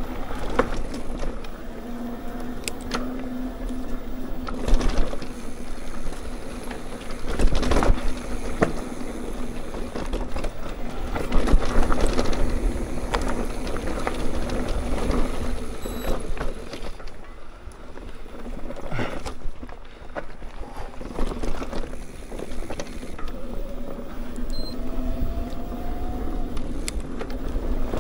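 Mountain bike rolling along a dirt trail: rumbling tyre noise with the bike knocking and rattling over bumps, a few sharp knocks standing out.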